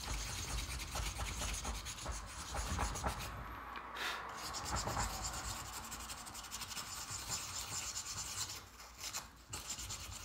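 Quick, steady rubbing and scratching strokes as small shiny metal circuit-kit parts are scuffed with an abrasive until they lose their shine, a coating the maker guesses would keep electricity from flowing well. The strokes pause briefly twice, about three and a half seconds in and near the end.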